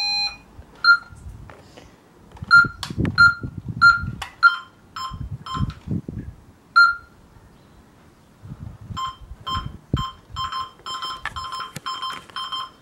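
Optima Compact burglar alarm keypad beeping as its buttons are pressed, one short beep per key, while a PIR zone is omitted. About nine seconds in, the panel switches to a fast, even beeping on two pitches that keeps going.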